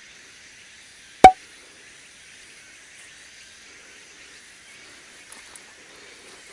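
Steady high-pitched buzzing of an insect chorus, with one loud, sharp click about a second in.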